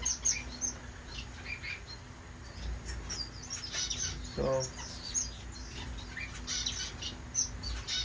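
Small caged and aviary finches chirping: many short, high chirps from several birds, scattered irregularly.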